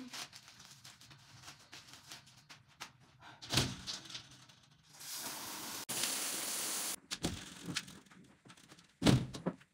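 Household handling sounds: a few sharp knocks, the loudest near the end, and a hiss lasting about two seconds in the middle.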